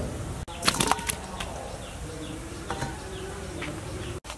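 Knocks and clatter of cooking things being handled, the loudest a sharp clack with a brief metallic ring about half a second in, then a few lighter taps.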